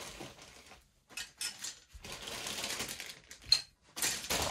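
Plastic model kit parts and their bags being handled: crinkling plastic with irregular sharp clicks of plastic parts knocking together.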